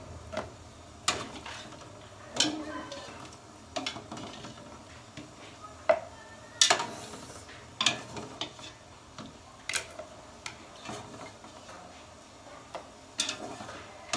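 A cooking utensil stirring and knocking against the inside of an aluminium pot of chicken broth, with scattered clinks and scrapes, the sharpest knocks a little after the middle.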